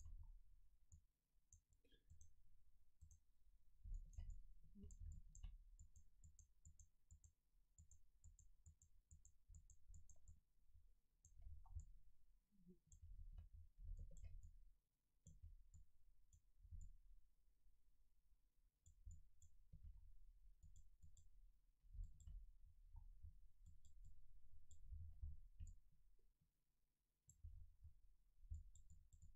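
Near silence with faint, irregular computer mouse clicks and soft low thumps of the mouse and desk.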